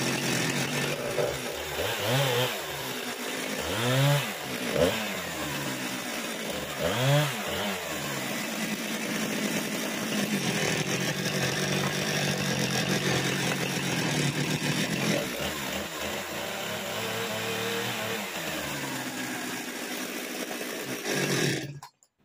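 Husqvarna two-stroke petrol chainsaw cutting through wooden boards. Its engine pitch rises and falls several times in the first eight seconds as the chain bites, then it runs steadily at high speed. The sound cuts off suddenly near the end.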